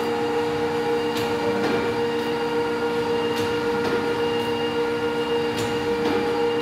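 Large stationary engine running: a steady mechanical hum made of several held tones, with sharp clicks or knocks at uneven intervals, roughly one a second.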